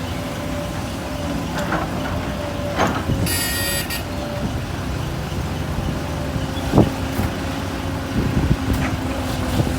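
Heavy diesel engines of an excavator and a dump truck running steadily. A few sharp knocks come through, and there is a short high-pitched sound about three seconds in.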